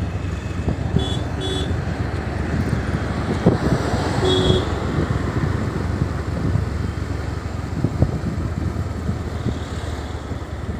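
Riding on a two-wheeler: steady engine and road rumble with wind buffeting the microphone. Two short horn beeps sound about a second in, and a longer beep about four seconds in.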